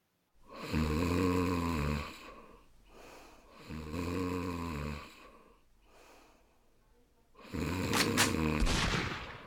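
A person snoring: three long, deep snores a few seconds apart.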